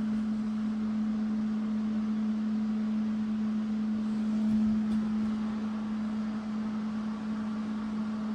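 A steady low machine hum: one held tone with faint overtones and a light hiss behind it, unchanging throughout.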